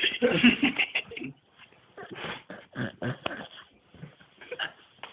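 A drunk person snoring, with loud snorting breaths about a second long and short quieter pauses between them.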